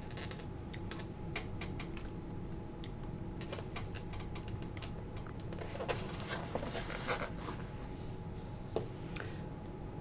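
Scattered light clicks, taps and rustles of a foam takeout clamshell and its packaging being handled, with a steady low hum beneath.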